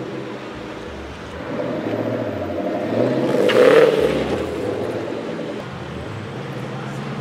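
Ford Mustangs with V8 engines driving off in a line, their engines running low and steady. The sound swells to its loudest about three and a half seconds in as one accelerates past, then eases off.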